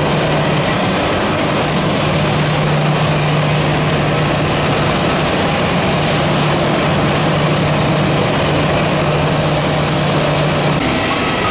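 Steady running noise of a parked Airbus A320 jet airliner, a loud even rushing sound with a low steady hum that cuts off shortly before the end.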